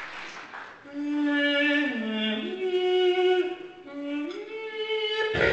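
A man's voice through a microphone sings a slow phrase of long held notes, stepping down and then up. After a short break he sings a shorter second phrase, low and then up. The last of the applause fades out just before he starts.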